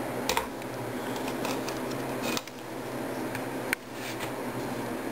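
Scattered small metallic clicks and clinks as an AK-pattern rifle's steel parts and small tools are handled, the sharpest click about three-quarters of the way in, over a steady low background hum.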